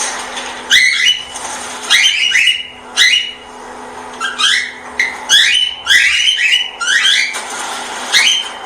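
A small pet parrot calling: a run of about a dozen short, sharp chirps with quick pitch glides, coming in irregular clusters, over a faint steady hum.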